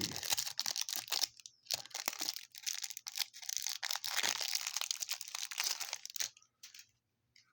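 Packaging of a 2020 Donruss baseball card hanger box being torn open and crinkled by hand, in irregular crackling bursts that stop about six seconds in.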